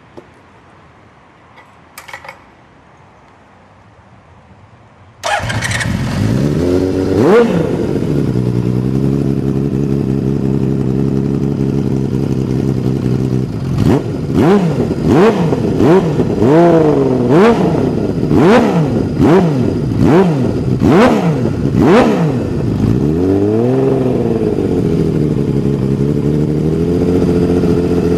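Honda CBX1000's inline six-cylinder engine, breathing through a Devil aftermarket exhaust, starts about five seconds in and settles to a steady idle. It is then revved in a run of about ten quick throttle blips, followed by one longer rev, before dropping back to idle.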